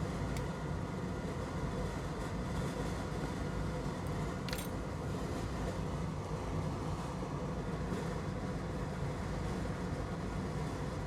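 Steady hum and airflow of a bench fume extractor fan running while the port is soldered, with a faint click about half a second in and another about four and a half seconds in.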